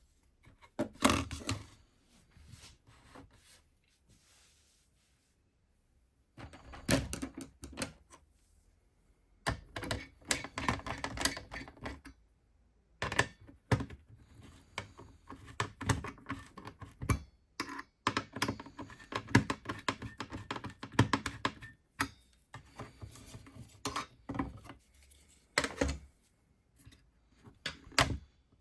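Clicks, knocks and rattles of a desktop computer's metal and plastic parts being handled and taken apart, in irregular bursts with short pauses.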